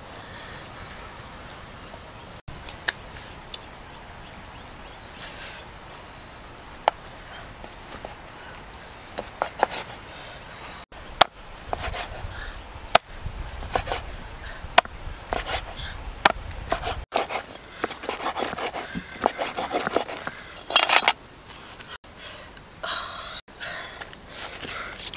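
A knife cutting cooked cow ears on a wooden chopping block: irregular sharp knocks of the blade striking the wood, few at first and coming thicker and faster in the second half.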